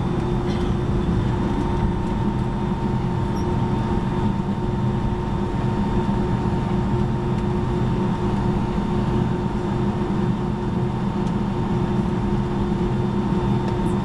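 Steady cabin noise inside a Boeing 757-200 taxiing after landing: the engines running at low power and the air system hissing, with a steady low hum made of several fixed tones.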